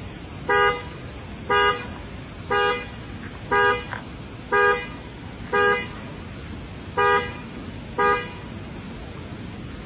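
A car horn honking in short, even blasts about once a second, eight times, then stopping a little after eight seconds in.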